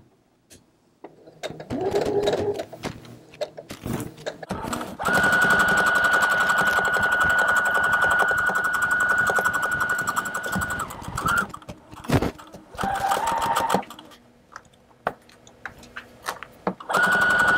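Brother electric sewing machine stitching in stop-and-start runs, with a motor whine and needle clatter. A few short bursts are followed by a steady run of about six seconds, then a brief slower burst and a pause. It starts stitching again near the end. The stops fit pivoting the fabric at the seam's corners.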